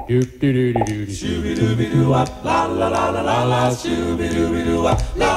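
Intro music sung by voices without instruments, a cappella style: several voices holding chords over a low bass part that steps between notes.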